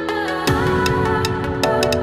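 Instrumental music: held chords over a steady ticking beat, the chord changing about half a second in and again near the end.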